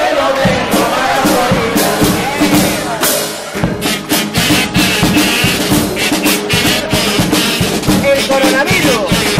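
Chirigota carnival band playing an instrumental passage between sung verses. A row of kazoos (pitos) carries the tune over guitars and a steady beat on bass drum and snare.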